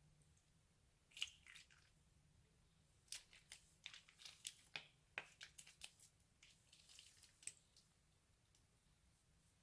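Crunchy slime being squeezed and handled, giving a faint run of sharp crackles and snaps. A few come about a second in, then about a dozen in quick succession.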